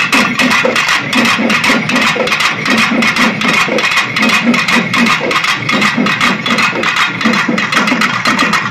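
A large ensemble of pambai drums, the paired cylindrical Tamil folk drums beaten with sticks, playing together in a loud, fast, unbroken rhythm.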